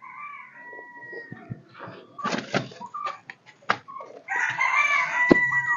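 Rooster crowing twice: a first crow at the start and a louder, longer one near the end, with a few sharp knocks and rustling in between.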